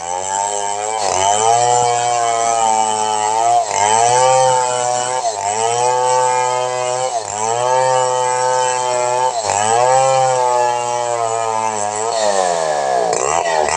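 Chainsaw engine at high revs ripping through a log, its pitch sagging under load and recovering about every two seconds. Near the end the revs drop sharply, then climb again.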